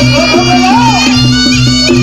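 Reog Ponorogo accompaniment music: a nasal, reedy slompret melody bending up and down over a held low tone, with drum beats about twice a second.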